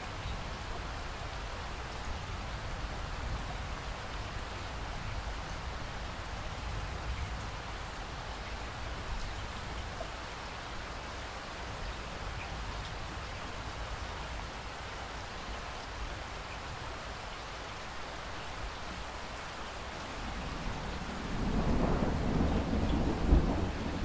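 Steady rain falling, with a low roll of thunder building in near the end.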